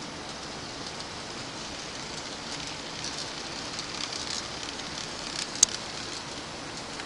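HO scale model freight train rolling past, a steady crackling rattle of its small wheels on the track that swells as the cars pass close. One sharp click comes a little past halfway.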